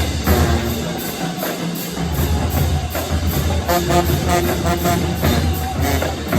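Music with drums and percussion keeping a steady beat; the bass drops out about a second in and comes back about a second later.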